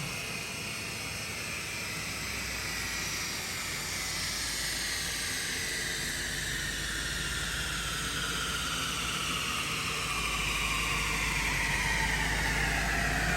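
Supercharged Mustang on a chassis dyno coasting down after a pull: the spinning rollers and wheels give a hissing whine that slowly falls in pitch as they lose speed.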